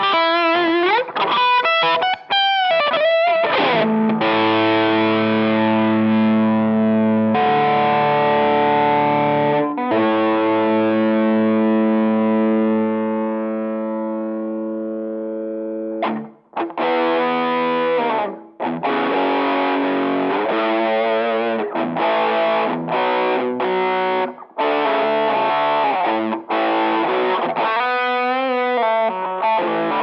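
Electric guitar played through a Behringer UM100 Ultra Metal distortion pedal, with a heavily distorted, compressed metal tone. A few seconds of quick lead notes with bends and vibrato give way to held chords ringing out for about twelve seconds, then choppy stop-start riffing.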